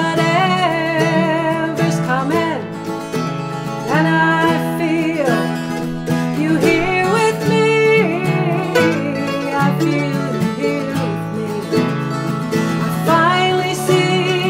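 A woman singing with vibrato over an acoustic guitar playing chords.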